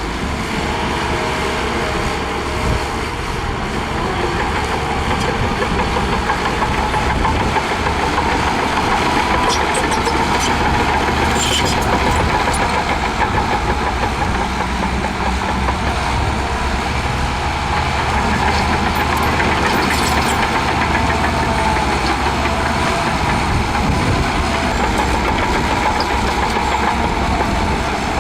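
Diesel engine of a Shantui DH17C2 bulldozer running steadily under work, with a few light metallic clinks.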